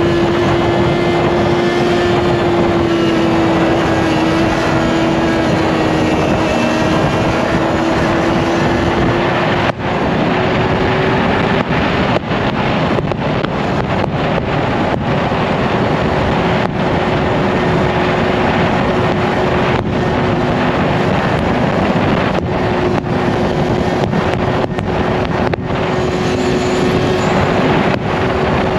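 Yamaha R1 inline-four sport-bike engine running at a steady pitch under way, with wind rushing over the microphone. The pitch sags slightly and then rises about ten seconds in, and there are several brief dips in the sound in the second half.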